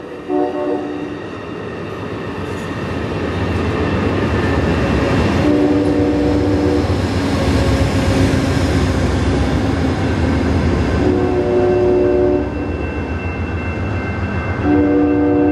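Amtrak passenger train passing at street level: the diesel locomotive's rumble swells to its loudest about halfway through as it goes by. A multi-note train horn sounds four times, a short blast at the start and then three longer ones of about a second and a half.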